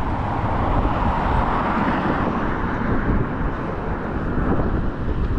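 A road vehicle passing, its road noise swelling to a peak about two seconds in and fading by about four seconds, over the steady low rumble of wind on the microphone.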